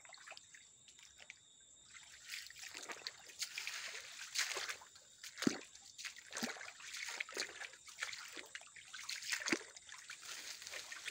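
Shallow, gently flowing stream trickling and splashing over stones and gravel, with irregular louder splashes, rising from about two seconds in.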